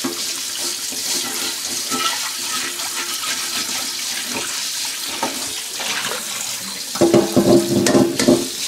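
Tap water running into a carbon steel wok in a stainless steel sink while a bamboo wok brush scrubs the pan's surface. About seven seconds in, a few louder knocks come as the wok is shifted in the sink.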